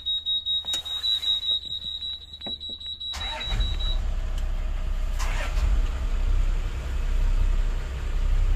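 Twin Yamaha engines being started: a rhythmic cranking for about three seconds, then the engines catch and settle into a steady low idle. A high-pitched warning buzzer at the helm beeps along with the cranking and stops about four seconds in.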